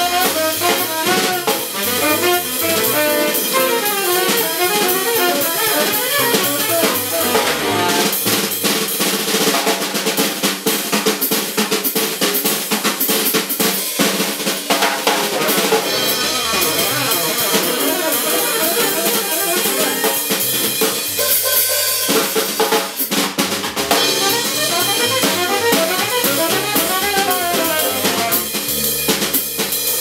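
A jazz quartet playing live: tenor saxophone, piano and upright bass over busy drum-kit playing.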